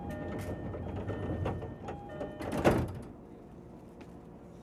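Utsunomiya Line commuter train's doors opening at a station: a two-tone door chime repeats for about two seconds over the rattle of the door mechanism, then a loud clunk as the doors come to a stop.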